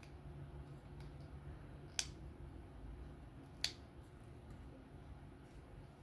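Two sharp metallic clicks about a second and a half apart as small knife parts and tools are handled during reassembly, over a low steady hum.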